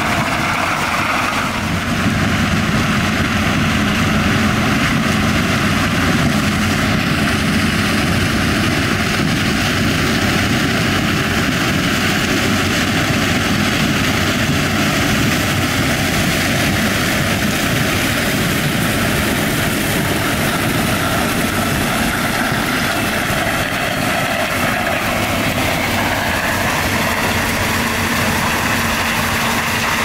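New Holland CX8080 Elevation combine harvester running steadily while harvesting grain corn: a constant engine drone under a dense rushing noise from the machine, stepping up slightly about two seconds in.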